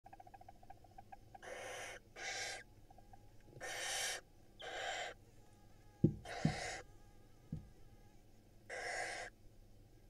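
Barn owl nestlings begging for food with harsh hissing calls: six separate rasping hisses of about half a second each. A fast run of faint clicks comes at the start, and a few sharp thuds about six to seven seconds in, the first of them the loudest sound.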